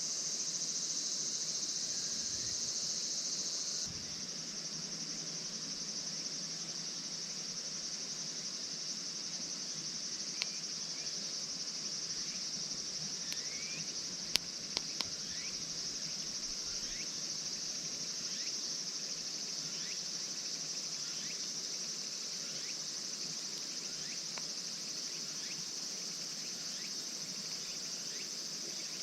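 A steady, high chorus of crickets and other insects, with a few sharp clicks around the middle.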